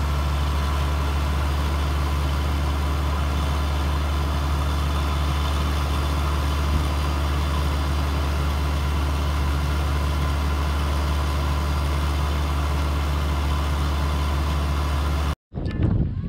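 New Holland CX-series combine harvester running steadily at a constant engine speed while its unloading auger pours grain into a truck. The sound cuts off abruptly near the end.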